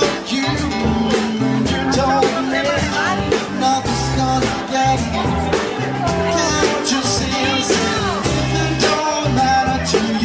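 Background music: a song with a singer over a steady drum beat.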